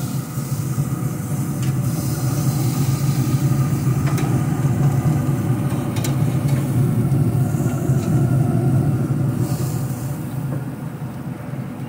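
Steady rumbling roar of a Pit Boss pellet smoker burning hot on pellets and charcoal, with a faint steady hum over it, easing off a little near the end.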